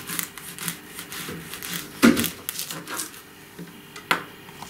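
A kitchen knife cutting through a whole onion on a plastic chopping board: crackling of the papery skin and sharp knocks of the blade on the board, the loudest a little after two seconds in and another about four seconds in.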